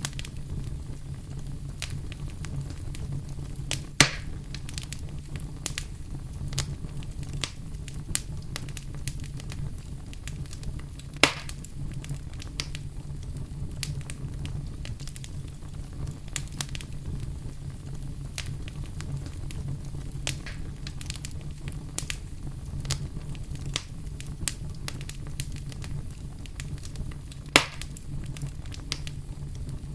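Campfire burning with a steady low rumble and irregular crackles and pops of burning wood, three sharp pops louder than the rest.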